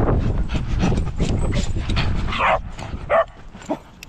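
Small dogs yipping and barking in short calls over a low rumble; the rumble drops away about two and a half seconds in, leaving a few separate yips.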